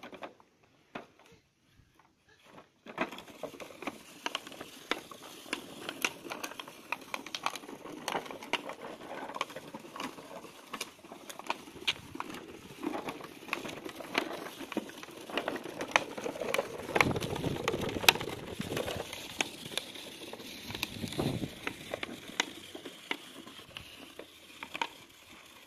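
Light snow crunching and crackling under the small plastic wheels of a child's ride-on toy and her boots as she scoots along, with many sharp clicks and crunches.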